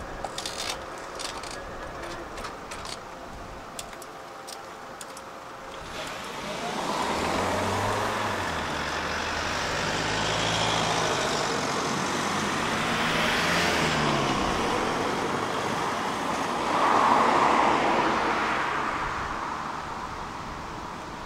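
Road traffic passing: cars drive by one after another, their engine and tyre noise swelling and fading, with the loudest pass about two-thirds of the way in. A few sharp clicks sound at the start.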